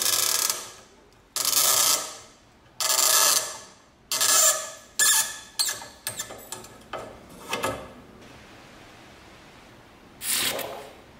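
Rusted hinge bolt on an antique cast-iron charcoal box iron squeaking as it is turned out with a screwdriver and pliers: a run of short metal-on-metal squeaks, the first ones longer, then shorter and quicker. Near the end there is one brief sound as the freed part is dropped into a glass of liquid.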